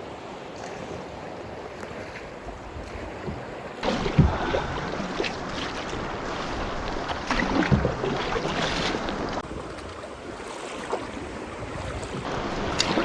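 Wind and lake water sloshing around a paddled canoe, with wind buffeting the microphone. It gets louder about four seconds in, with a few short splashes.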